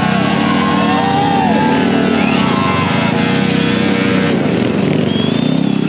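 Motorcycle engine running under a stunt rider's throttle, its pitch rising and falling in quick repeated revs over a steady engine note.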